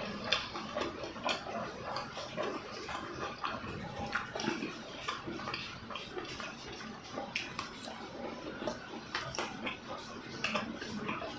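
Close-miked eating: chewing and mouth sounds with irregular clicks of utensils against a dish, over a steady hiss of rain.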